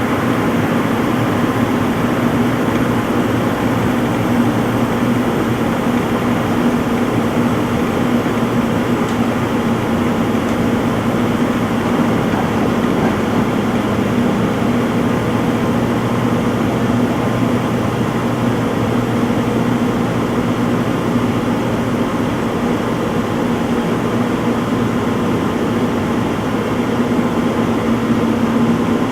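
Front-load washing machine in its spin cycle: the drum spinning at steady speed with a constant whirring hum.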